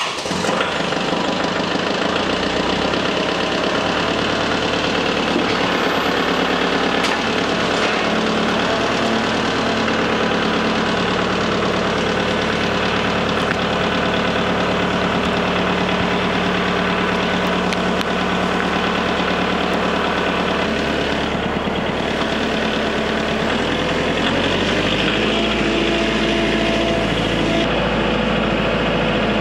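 Kubota tractor's diesel engine idling steadily, then changing note near the end as the tractor drives off.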